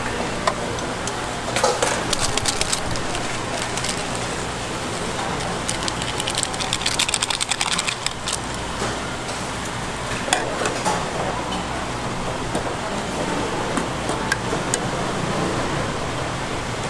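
Stovetop cooking: a steady hum from the gas burner and kitchen, with scattered clicks and scrapes of metal tongs against an aluminium pot as instant noodles are stirred. About six to eight seconds in there is a quick run of small rustling ticks as a seasoning packet is shaken out over the noodles.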